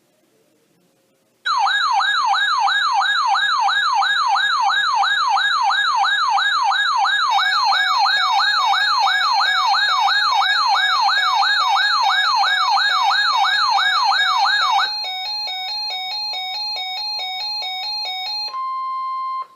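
Electronic emergency alert tone, loud: a siren-like warble sweeping up and down about twice a second, starting about a second and a half in. At about 15 seconds it switches to a rapid pattern of stepped beeping tones, and near the end it becomes a short steady high beep that cuts off suddenly.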